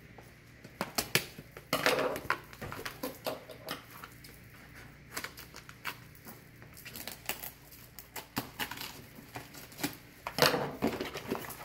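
Scissors snipping and cutting through thick plastic packing tape and cardboard on a heavily taped shipping box, in bursts of sharp clicks and crackles. Near the end, the loudest one is a rip of tape and cardboard as a flap is pulled open.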